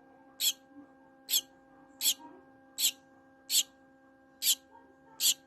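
Gouldian finch calling: a series of seven short, high chirps, about one every three-quarters of a second, over a faint steady hum.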